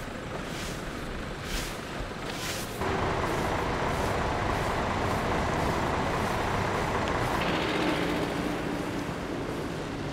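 Brooms sweeping volcanic ash off asphalt, one scrape about once a second. About three seconds in, a louder steady vehicle noise takes over and runs on.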